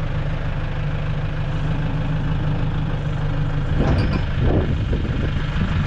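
Nissan SUV's engine idling steadily, with a few metal clanks about four seconds in as a tow bar is set onto its hitch.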